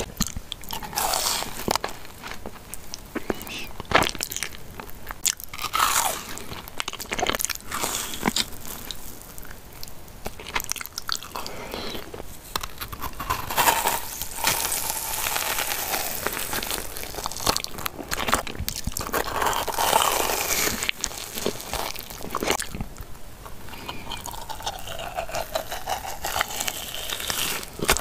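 Biting and chewing fried cheese balls: many separate crunches of the fried crust, mixed with softer chewing of the cheese filling and sauce.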